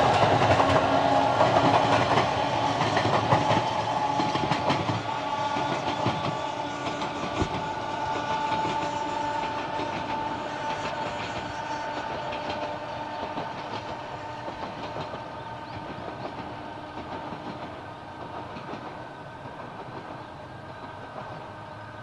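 Sangi Railway Hokusei Line 762 mm narrow-gauge electric train running away along the track, its wheels clattering over the rails with a few steady high tones. The sound grows steadily fainter as the train draws into the distance.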